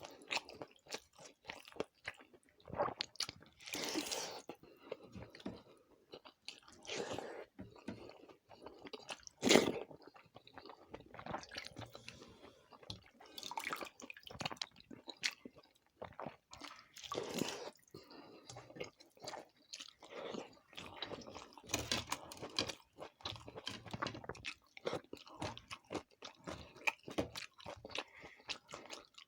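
A person chewing and crunching food close to the microphone, in irregular crisp bites and wetter chewing, with one sharp, loud crunch about nine and a half seconds in.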